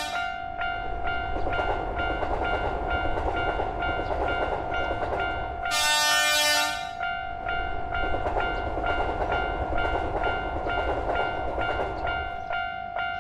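Japanese level-crossing warning bell clanging 'kan-kan' about twice a second while a train runs by with a low rumble. A train horn sounds for about a second, about six seconds in. The rumble fades near the end while the bell keeps ringing.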